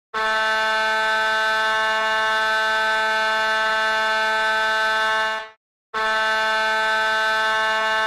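Ice-hockey arena goal horn, an air horn blowing a long steady blast of about five seconds, cutting off briefly, then sounding a second blast. It is the horn that signals a goal being scored.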